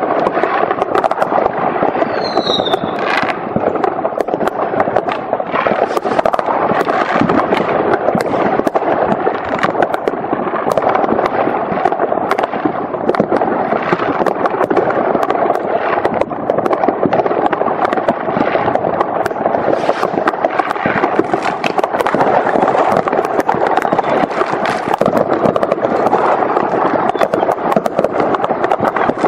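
Many fireworks going off at once: a dense, continuous crackle packed with sharp bangs, and a short whistle about two seconds in.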